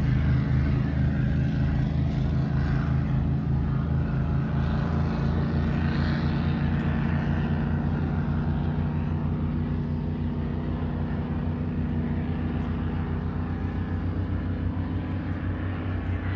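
Loud, steady engine drone with a low, fast pulsing beat under it, slowly fading.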